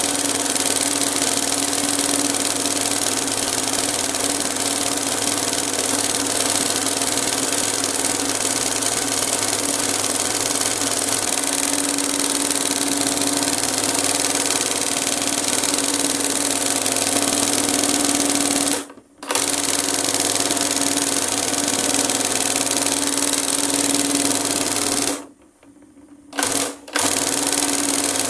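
Industrial embroidery sewing machine running steadily at speed, stitching gold cord embroidery into fabric guided by hand, with a constant motor hum under the stitching clatter. It stops briefly about two-thirds of the way in, and again near the end for about a second and a half, with a short burst of running in between.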